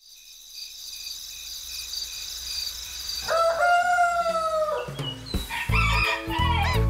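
A rooster crows once, a single long call about three seconds in, over a faint steady high-pitched chiming background. About five seconds in, bouncy children's music with a beat and quick chirping bird-like glides starts.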